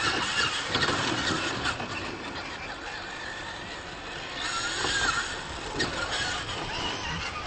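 Radio-controlled monster trucks racing on dirt, their motors whining up and down with the throttle, with sharp knocks as they hit the ramps and obstacles.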